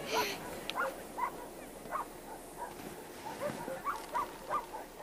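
A string of short, high yelps, a few a second, from an animal, with a brief rush of noise at the start.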